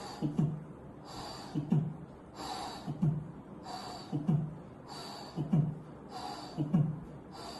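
Recorded heart sounds of tricuspid regurgitation through a stethoscope: six beats a little over a second apart, each a dull low thump joined to a soft hissing pansystolic murmur, with a muffled first heart sound.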